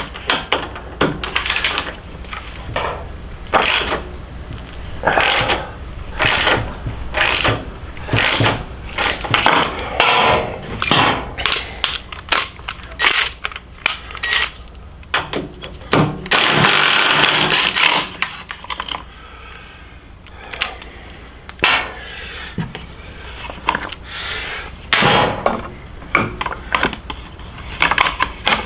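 Socket ratchet clicking in short runs as bolts are worked loose, with knocks of metal tool on metal parts between runs; about sixteen seconds in, one longer run of clicking lasts about two seconds.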